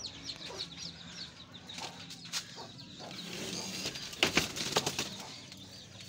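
Domestic hens clucking, with faint high chirping and a cluster of sharp knocks and rattles about four seconds in.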